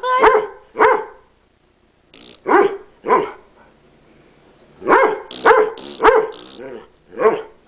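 Pet dog barking in short runs: two barks, a pause, two more, then a quicker run of four or five near the end. These are the back-talking barks that the owner reads as the dog angrily answering her.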